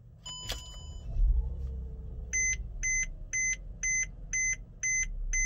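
Mercedes-Benz GLK350 instrument-cluster chimes as the ignition is switched on: a single short chime, a low thump and rumble about a second in, then a warning beep that repeats steadily about twice a second from about two seconds in.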